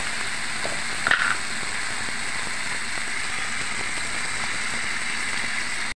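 Ridge gourd, tomato and potato sizzling steadily in hot oil in a kadai while they fry, with a brief scrape of a metal spatula against the pan about a second in.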